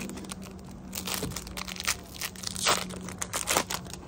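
Plastic wrapper of a baseball card pack crinkling and tearing as it is pulled open by hand, a dense run of crackles starting about a second in.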